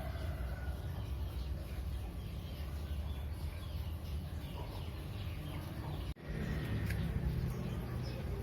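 Faint bird calls over a steady low rumble, with the sound dropping out for an instant about six seconds in.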